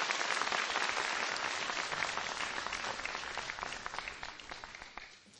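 Audience applauding, a steady patter of many hands that thins out and fades near the end.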